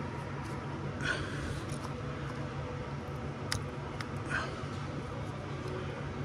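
Small hand-work noises on engine parts: two short scrapes or squeaks, about a second in and about four seconds in, and a few light clicks between them, over a steady low background hum.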